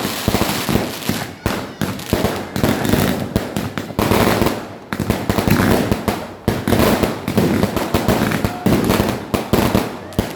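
Fireworks and firecrackers going off in a dense, continuous barrage of overlapping bangs and crackles, several a second with no pause.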